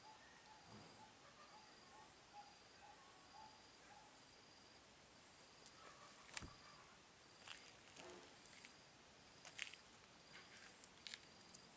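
Near silence, with a faint high insect chirp repeating about once a second. A few sharp clicks come in the second half, the loudest about six and a half seconds in.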